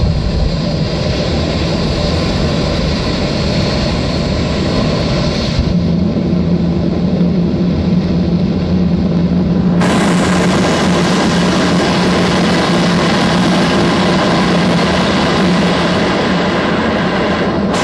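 Jet car's jet engine running at high power with a long blast of flame from its exhaust: a loud, steady roar. A steady low hum joins about six seconds in, and the roar turns harsher and brighter about ten seconds in.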